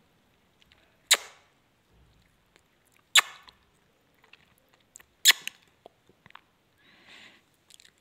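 Three loud, sharp clicks about two seconds apart, with fainter ticks between them and a short, soft rustle near the end.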